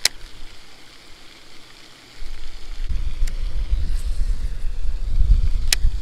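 Wind buffeting the microphone, a heavy low rumble that comes up about two seconds in and stays. A few sharp clicks sound over it, the sharpest at the very start and near the end.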